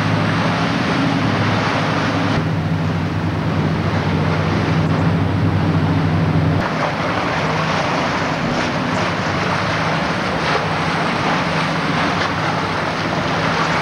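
Harbour-side wind rushing over the camcorder microphone along with water and traffic noise, under a low steady engine drone that fades out about six and a half seconds in.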